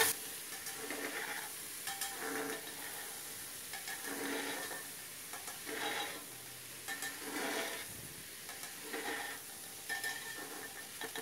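Spatula scraping and stirring diced bottle gourd in a pressure cooker, about seven strokes spaced a second or two apart, over a steady sizzle of the vegetable frying in hot mustard oil with onions. The gourd is being sautéed to cook off its rawness.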